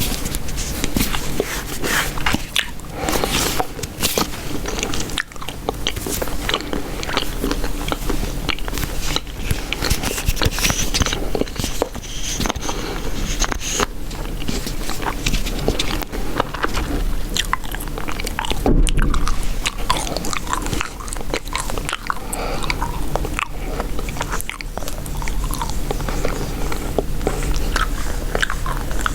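Chewing gum chewed close to the microphone: a continuous run of small, wet clicks from the mouth.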